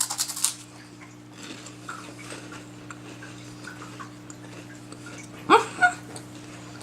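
A bite into a crisp monaka wafer bar, a quick crackly crunch at the start, followed by faint chewing. A short voice sound near the end, over a steady low hum.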